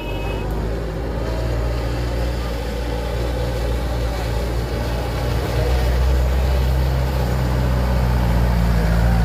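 Diesel engine of a Mitsubishi Canter dump truck running as the truck drives up the track, its low, steady note growing gradually louder as it approaches.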